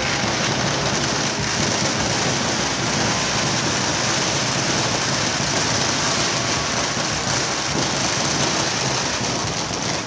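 A steady, dense hiss with fine crackles throughout, starting and stopping abruptly.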